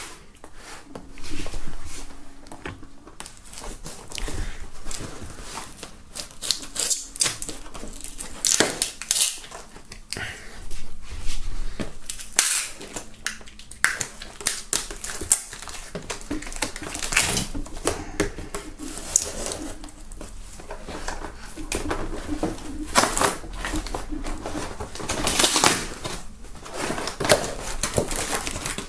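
Knife blade slitting clear packing tape along the seam of a large corrugated cardboard box: irregular scratchy strokes and sharp clicks, with the cardboard scraping and rustling as it is handled.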